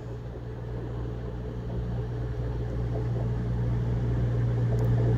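CrossCountry Voyager diesel multiple unit approaching the platform, the steady low drone of its underfloor diesel engines growing louder.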